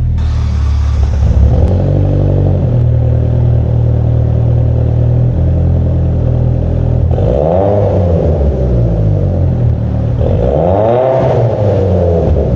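Mitsubishi Lancer Evolution X's built 2.0 L 4B11T turbocharged four-cylinder idling, then revved twice in the second half, the pitch rising and falling back each time.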